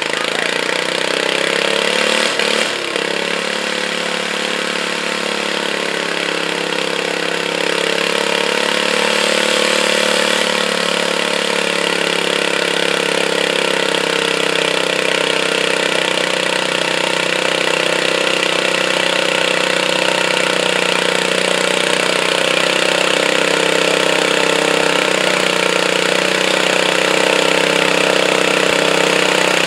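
Modified garden pulling tractor's engine running hard and steady under load as it drags a weight-transfer sled down the track, getting a little louder over the first several seconds.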